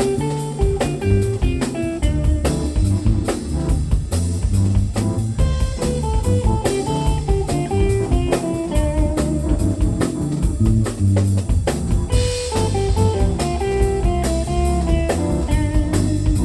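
A live band playing an instrumental groove: electric guitar lines over bass and a drum kit keeping a steady beat.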